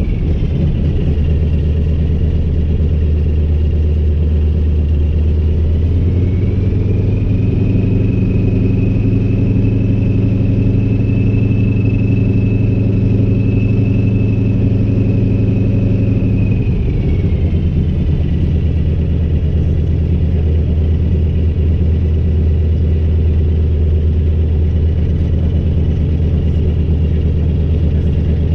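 Nine-cylinder M-462RF radial engine of a Zlin Z-37A running loud with its propeller turning, heard from inside the cockpit. The engine speeds up about six seconds in, holds for roughly ten seconds, then drops back to a lower, steady speed.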